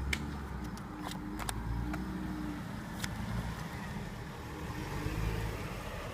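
A car passing by: a low engine and road rumble that swells about five seconds in. A few sharp clicks sound over it.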